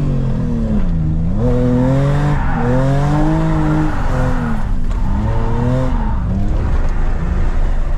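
BMW E30's engine revving up and falling back several times under hard driving while drifting, with tires squealing and skidding in stretches, heard from inside the cabin. The squeal is a tire being worn through.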